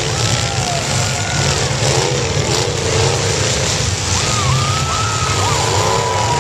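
Several demolition derby cars running together: a loud, steady low engine drone with pitches that rise and fall as the engines rev.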